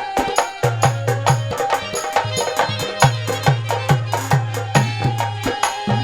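Instrumental interlude of Haryanvi ragni folk music: hand drums play a quick, steady beat with deep ringing bass strokes, under a held melody line.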